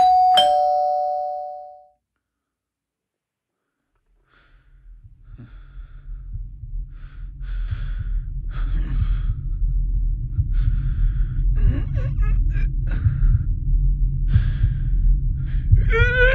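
A single bright bell-like chime rings out and dies away over about two seconds, followed by silence. A low rumbling drone then swells up steadily, with short hissy sounds coming and going over it. A wailing cry begins right at the end.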